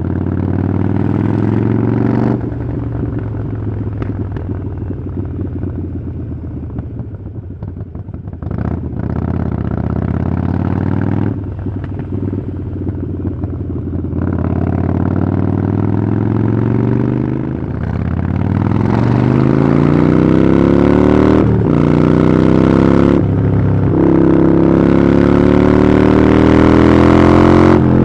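Harley-Davidson Iron 883's air-cooled 883 cc V-twin running through a Vance & Hines exhaust. It runs at low revs with a few brief drops in throttle. About two thirds in it accelerates hard with rising pitch, makes two quick gear changes a couple of seconds apart, then holds steady at higher revs.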